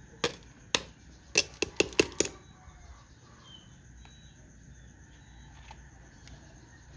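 A quick run of about seven sharp clicks or knocks in the first two and a half seconds, then quiet with a faint steady high-pitched hum.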